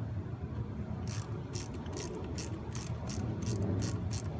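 Hand ratchet wrench clicking in quick back-and-forth strokes, about three clicks a second, starting about a second in.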